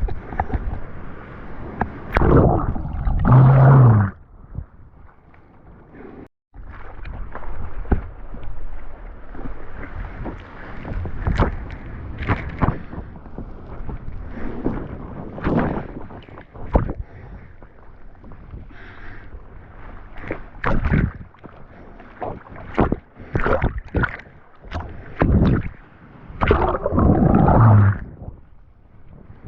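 Ocean water splashing and washing over a camera in the surf, with many short splashes. Two loud surges of churning water come, one about three seconds in and one near the end.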